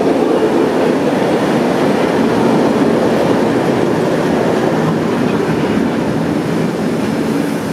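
A train rolling past close by, first its vintage passenger carriages and then diesel locomotive 4520 on the end. The wheels make a steady rumble and clatter on the rails.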